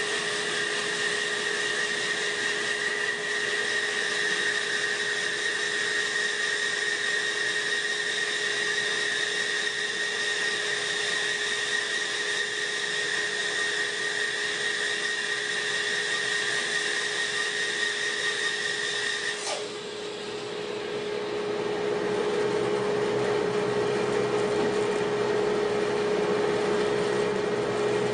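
Rikon bandsaw running with its dust collector, the blade cutting through a log section to square its face, with a steady high whine over the motor hum. About two-thirds of the way in the cutting whine stops suddenly as the cut ends, and the saw and collector run on.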